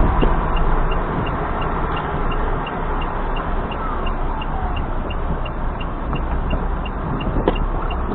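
Road and engine noise from a car driving along, a steady low rumble with tyre hiss, with a faint regular ticking about two or three times a second.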